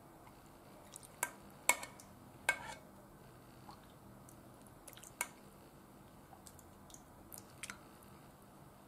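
A metal spoon clinking against a saucepan and a ceramic bowl while miso soup with mochi is spooned out: a handful of short, sharp clinks, the loudest about two seconds in, with quiet wet spooning between.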